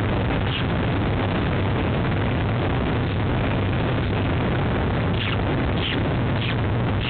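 Steady loud rumbling noise on the nest webcam's microphone, with a few short, faint, high peeps from newly hatched peregrine falcon chicks, most of them in the last two seconds.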